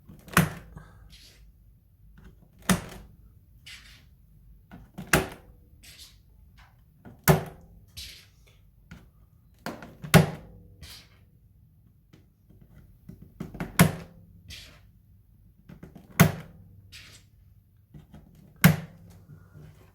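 Keycaps being pressed onto a mechanical keyboard's switches: eight sharp knocks about every two and a half seconds, with fainter clicks between them.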